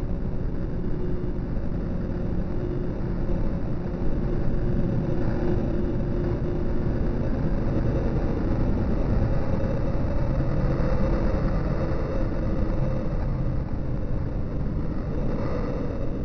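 Steady city street traffic noise: a continuous low rumble with no distinct events standing out.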